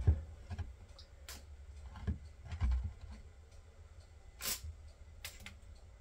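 Scattered faint clicks and a few light knocks from handling a tape measure and pencil against a wooden board, with one brief scratchy sound a little past the middle.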